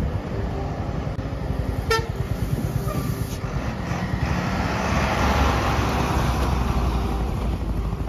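Road traffic passing close by: a brightly painted goods truck and a motor scooter approach and go past, the engine rumble and tyre noise growing loudest about five or six seconds in. A short horn toot sounds about two seconds in.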